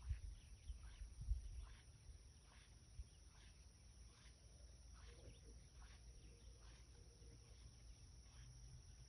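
Faint, regularly repeated short animal chirps, each sliding down in pitch, about two a second, over a low rumble, with a few soft low thumps in the first second and a half.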